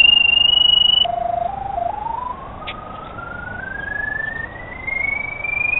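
Pipe locator's electronic tone tracking the sonde in a sewer camera head. A steady high tone drops low about a second in, then climbs in small steps back to a high pitch. The rising pitch signals a stronger signal as the locator closes in on the camera head.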